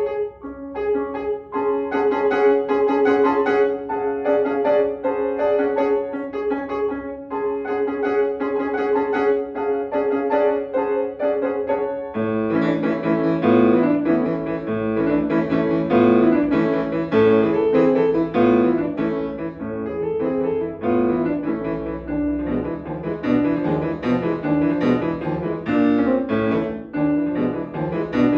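Solo grand piano played by hand: brisk repeated notes in the middle register, then about twelve seconds in the music drops lower into fuller, heavier chords.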